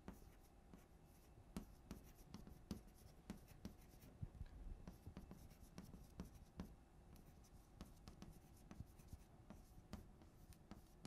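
Faint writing: light scratches with small ticks and taps scattered throughout.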